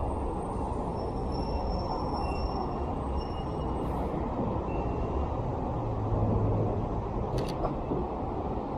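City street traffic: a steady rumble of passing vehicles, swelling about six seconds in, with faint thin high squeals early on and a sharp double click near the end.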